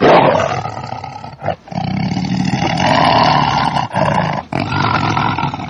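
A large animal calling loudly in long, drawn-out cries, broken by three short pauses.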